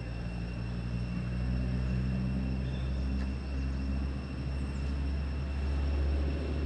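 Low engine rumble with a steady pitch, growing a little louder partway through.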